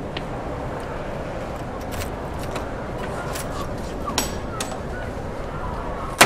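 Steady city street noise with traffic. About four seconds in comes a brief metallic jingle of keys, and near the end a sharp bang as a door shuts.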